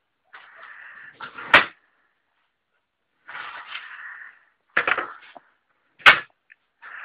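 Revolver's metal action being worked by hand: scraping rustles, then sharp clicks, two of them loud, in two rounds a few seconds apart.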